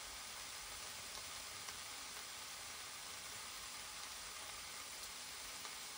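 Frozen lamb chops sizzling steadily between the closed plates of a Tefal Optigrill Elite contact grill as they defrost and cook.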